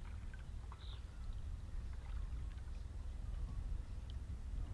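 Steady low wind rumble on the microphone, with faint small splashes and ticks of water lapping in shallow water.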